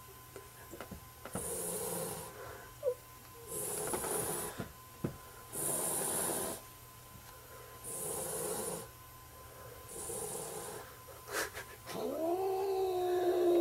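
Black cat hissing over and over, about five breathy hisses roughly two seconds apart, with a sharp click about three seconds in. Near the end the cat lets out a drawn-out low yowl whose pitch rises and then falls.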